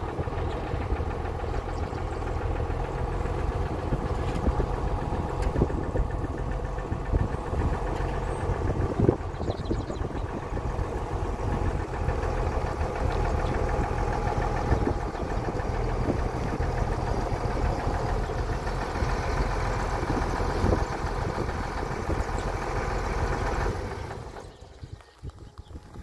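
Medium-duty tank truck's engine idling steadily, then cutting off abruptly about two seconds before the end.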